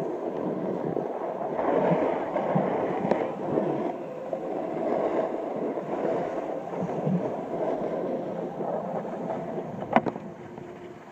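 Snowboard sliding and carving down packed snow, a steady scraping rasp that swells and eases with the turns. Near the end a single sharp knock as the board gets onto a box, and the slide goes quieter along it.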